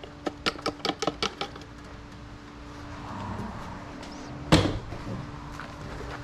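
A quick run of about seven light clicks, then one loud thump about three seconds later.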